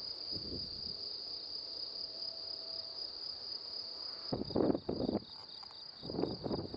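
Steady, high-pitched chirring of crickets, with two brief muffled low sounds about four and six seconds in.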